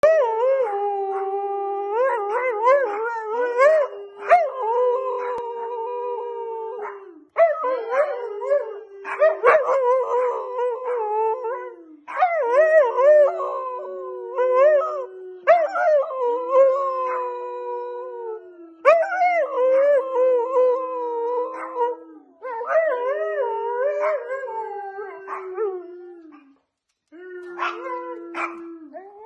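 Siberian husky howling in long, wavering, sliding calls, about seven of them with short breaks between, over a steadier held note underneath.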